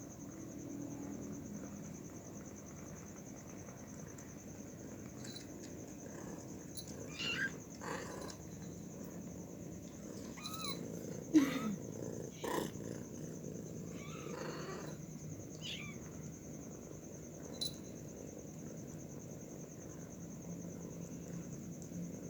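Young kittens mewing: a handful of short calls that bend in pitch, spread over the middle of the stretch, the loudest about eleven seconds in. A steady high insect-like shrilling runs underneath.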